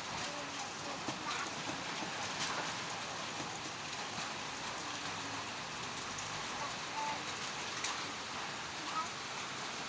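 A steady hiss in the background, with scattered faint taps and rustles of a ruler and pen on paper as the paper is measured and marked.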